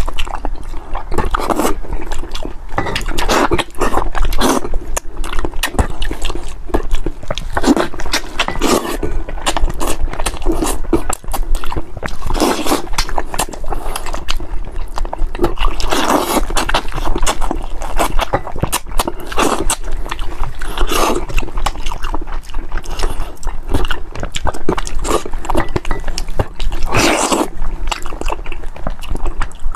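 Close-up mouth sounds of a person eating a saucy braised chicken head: irregular chewing, biting and sucking noises, one after another.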